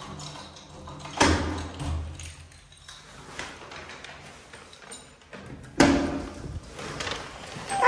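Wooden apartment door being opened: a sharp clunk about a second in, and another about six seconds in as the lever handle is pressed and the latch releases.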